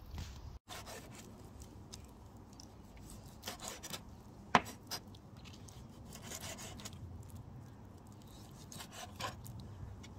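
A kitchen knife cutting and scraping raw chicken thighs on a wooden cutting board. Scattered light scrapes and taps, with one sharp knock of the blade on the board about four and a half seconds in.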